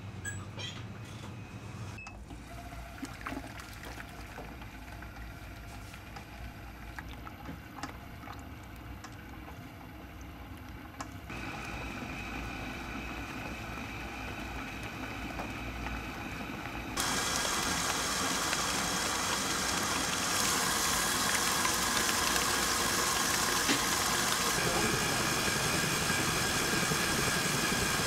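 Quiet kitchen clatter at first, then a KitchenAid stand mixer whisking batter in its steel bowl, its motor and whisk running steadily and getting much louder in the second half.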